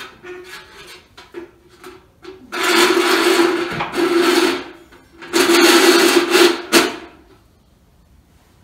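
Sheet-metal stove pipe scraping and grinding as it is twisted and shoved onto the wall connection, the pipe ringing at a steady pitch under the scrape. A few short scrapes come first, then two long loud stretches of scraping.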